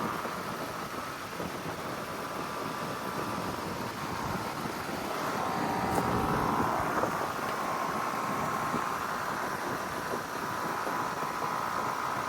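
Outdoor heat pump condensing units running: a steady rush of fan air with a faint hum in it, getting a little louder about five seconds in.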